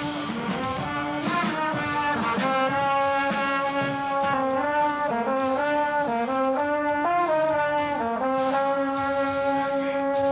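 A band with brass plays slow, sustained chords that step from one to the next, then settles on a long held chord about eight seconds in.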